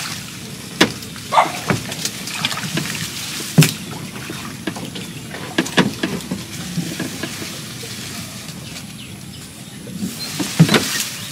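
Small wooden boat on a canal, with irregular sharp knocks against the hull and splashing water as a baited fishing longline is hauled in by hand. The loudest knock comes about three and a half seconds in, and a few more come near the end.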